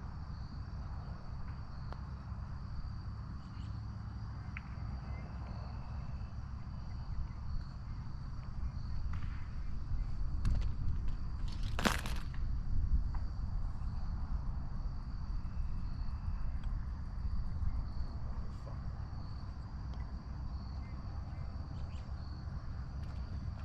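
Outdoor ambience dominated by a steady high-pitched insect drone, over low wind rumble. A single sharp click sounds about halfway through.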